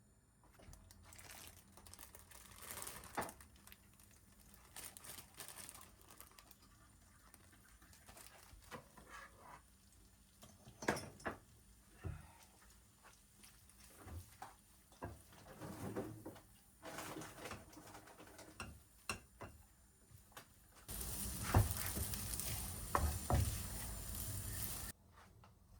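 Quiet small handling sounds: scattered clicks, taps and rustles, then a steady rushing noise that starts abruptly about twenty-one seconds in and cuts off suddenly about four seconds later.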